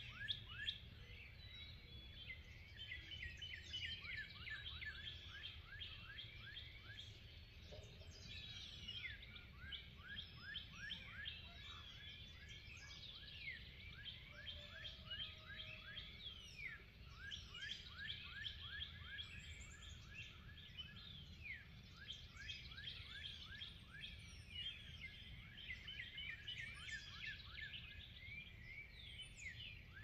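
Morning chorus of many small birds: dense, overlapping quick falling chirps and song phrases, over a faint steady low rumble.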